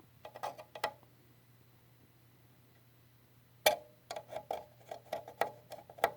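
Small clicks and taps of a test probe and clip being worked onto a transistor lead in an oscilloscope chassis: a few in the first second, a sharp one past the middle, then a quick irregular run of clicks near the end. A steady low hum runs underneath.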